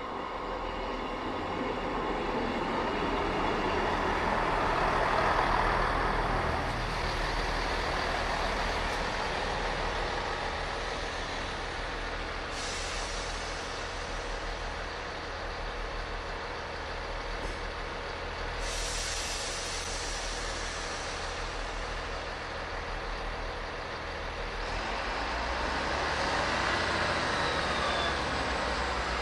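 Diesel multiple unit train running into the platform, then standing with its diesel engines idling and short hisses of air. Near the end the engines rise in pitch and get louder as it pulls away.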